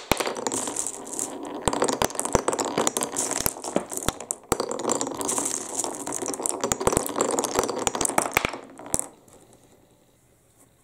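Marbles rolling and clattering down a wooden HABA marble run, a steady rolling rumble studded with sharp clicks as they drop and strike the wooden track; the run goes quiet about nine seconds in.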